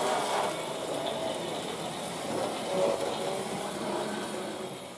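Steady, busy hall ambience with an indistinct mixed background noise of a crowded room and no clear voice standing out.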